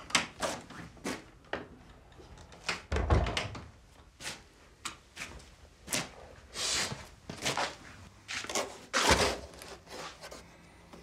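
Household handling noises in a small room: a run of knocks, clunks and rustles as someone moves about and handles things. There is a heavy low thump about three seconds in and another loud knock about nine seconds in.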